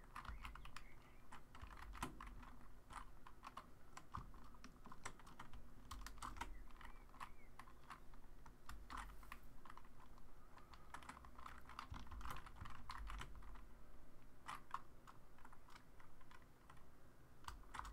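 Faint keystrokes on a computer keyboard, typed irregularly with short pauses between key presses.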